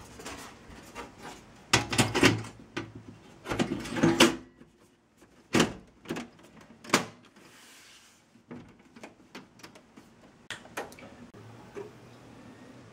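Computer cables and plugs being handled and pushed into a desktop tower: a run of knocks, clatters and rattles, heaviest in the first half, then lighter ticks. A steady low hum starts near the end.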